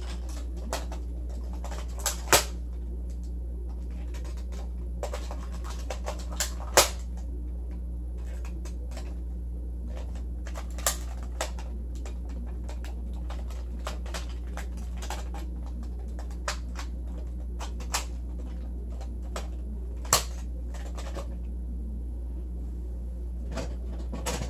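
A steady low hum with a scattering of sharp clicks and taps over it; the loudest come about two and seven seconds in.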